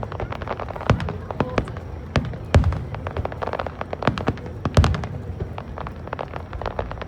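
Fireworks display: aerial shells bursting overhead, with many sharp pops and crackles. Two deep booms stand out, about two and a half and five seconds in.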